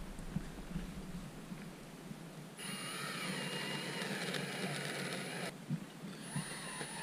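Cordless drill boring a mounting hole through a yacht's transom. It runs with a steady whine for about three seconds, stops briefly, then starts again near the end.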